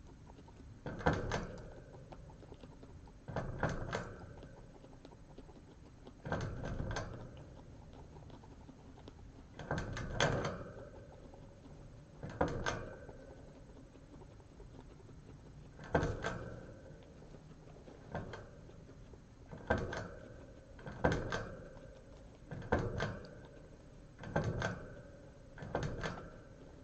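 Guinea pig drinking from a cage water bottle: the metal ball-valve spout clicks and air glugs up into the bottle in short bursts, about a dozen of them, one every two seconds or so.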